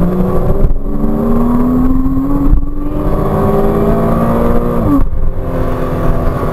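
Porsche Cayman 987.2's 2.9-litre flat-six accelerating hard at full throttle, heard from inside the cabin. The engine note climbs steadily in second gear, then drops with an upshift to third about five seconds in.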